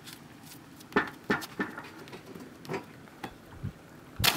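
Footfalls knocking on a floating dock, about six uneven steps, as a person runs out along it; a little after four seconds in, a loud splash as he jumps into the lake.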